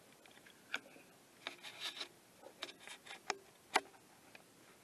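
Handling noise picked up by a camcorder's built-in microphone: a scatter of light clicks, taps and rubbing as the camera is moved around, with the sharpest click a bit under four seconds in.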